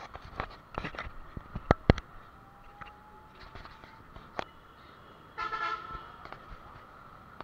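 A run of sharp knocks and clicks, the loudest two close together about two seconds in, then a short vehicle horn toot about five and a half seconds in, over a steady hum.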